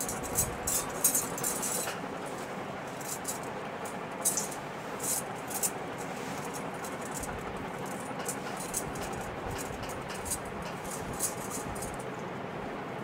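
Metal bangles clinking and jangling in short, irregular bursts as the hands move, over a steady background hiss.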